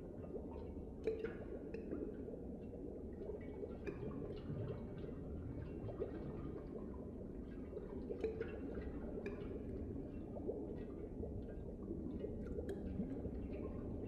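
Faint, irregular clicks scattered over a low, steady hum.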